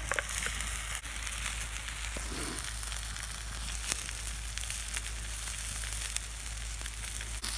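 Grilled cheese sandwich frying in a small metal camp pan over an open wood fire: a steady sizzle with scattered small crackles.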